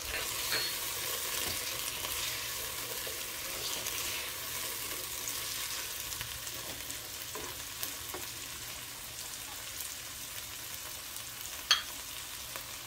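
Chicken, carrot and pea stir-fry sizzling in a nonstick wok as it is stirred and turned with a slotted spatula that scrapes against the pan. A sharp tap sounds near the end.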